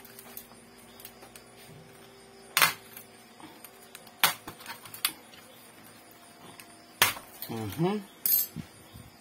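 Sharp clicks and knocks of hard plastic and metal laptop parts being handled and worked apart, four loud ones spread out with softer ticks between them.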